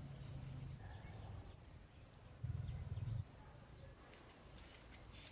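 Faint outdoor ambience: insects keep up a steady high buzz, with a few faint bird chirps. About two and a half seconds in, a low rumble lasts under a second and is the loudest thing.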